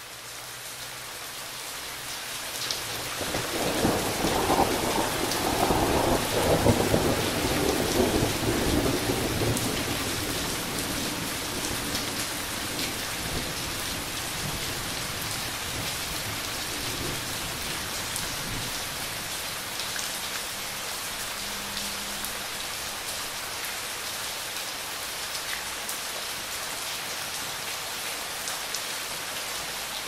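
Steady rain falling, with a long rumble of thunder that builds about three seconds in, is loudest a few seconds later and dies away by about ten seconds, leaving the even rain.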